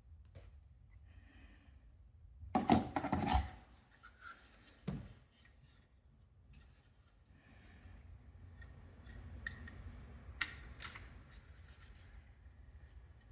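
Small hand-work noises while fitting a wall phone socket: a short burst of cutting or scraping strokes about three seconds in, a single knock near five seconds, and two sharp clicks near eleven seconds.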